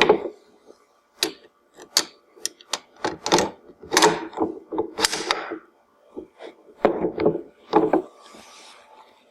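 Buttstock being fitted to the receiver of a UK vz. 59 machine gun: a string of irregular metallic clicks and clunks as the parts are handled and knocked together, with a brief scrape near the end.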